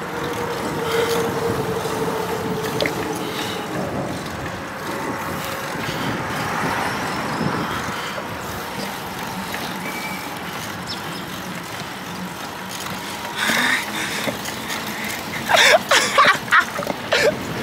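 A car running close behind on the road, engine and tyre noise, with a steady drone in the first few seconds. A person's voice cuts in briefly near the end.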